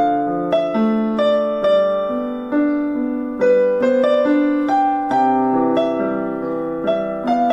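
Background piano music: a slow melody of struck notes and chords, about two a second, each ringing and fading.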